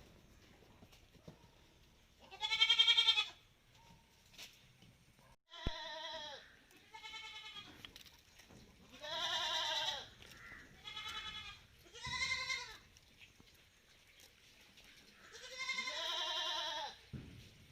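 Malabari goat bleats: about seven wavering bleats with short pauses between them, the loudest about two and a half seconds in and the longest near the end.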